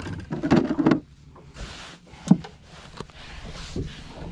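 Clicks, knocks and rustling from hands unhooking a gut-hooked bass over a landing net, with one sharp knock a little past two seconds in.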